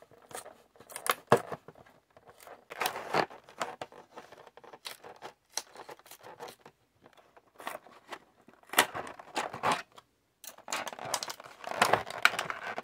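Thin clear plastic blister tray of a toy package crinkling and crackling as it is handled, with irregular sharp clicks and snaps.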